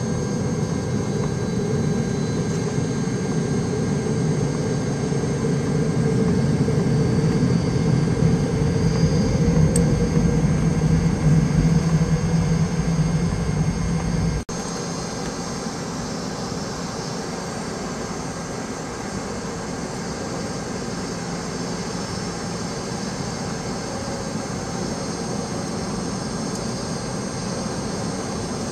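Airliner cabin noise of a Boeing 757 on the ground: a steady engine rumble with a thin high whine. It grows louder over the first dozen seconds, then cuts off abruptly halfway through to a quieter, steadier hum.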